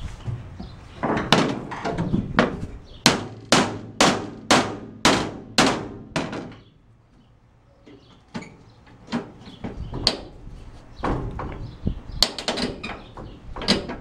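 About ten hard hammer blows on metal, evenly spaced about half a second apart, knocking down a piece of the step van's body that has lifted where a rivet is missing. After a short pause come lighter metallic taps and clicks from a hand tool against the metal.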